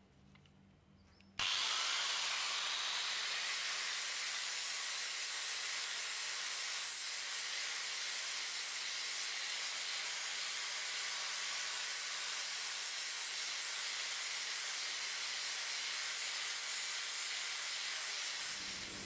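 Angle grinder with a sanding wheel grinding wood to a rough shape: a steady, hissing abrasion that starts suddenly about a second and a half in and cuts off shortly before the end.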